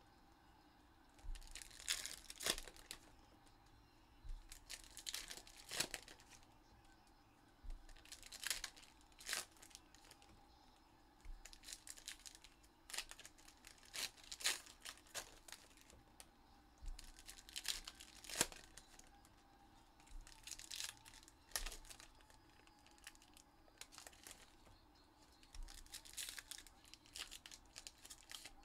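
Gold foil wrappers of 2021 Upper Deck Goodwin Champions packs being torn open and crinkled by hand, in short irregular bursts of crackling every second or two.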